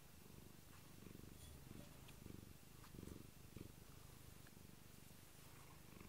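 Domestic cat purring faintly and close up: a low, fluttering rumble that swells a few times.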